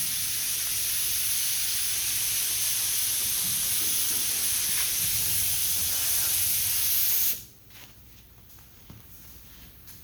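Compressed air hissing from a paint spray gun, blowing sanding dust off a block-sanded primed panel. A steady hiss that cuts off suddenly about seven seconds in.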